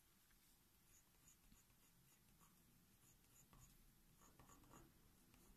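Near silence, with faint, scattered scratches of a coloured pencil stroking on drawing paper.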